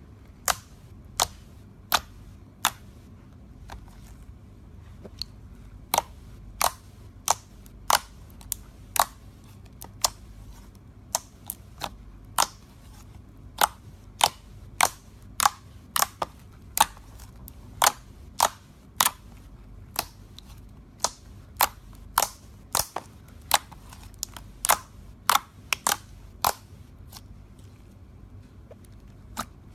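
Toy slime being pressed and worked, giving sharp, crisp clicks and pops at an uneven pace of about one or two a second.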